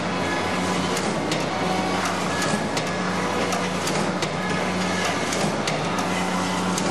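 Boleto mackerel gutting machine running: a steady mechanical clatter with frequent sharp clicks over a low hum as fish pass through it.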